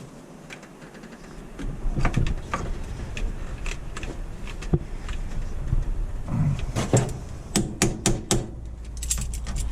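Irregular clicks, knocks and light metallic clatter of hands working with tools and parts on a car that isn't running. A low rumble starts about a second and a half in.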